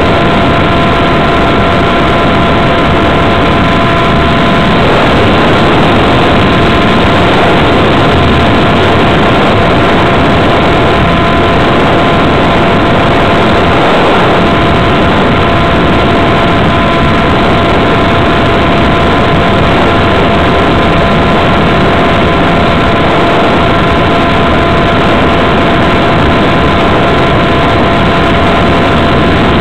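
Motor and propeller of a radio-controlled model plane running at a steady throttle, heard from a camera on board as a loud steady drone with a few held tones, mixed with wind rushing over the airframe.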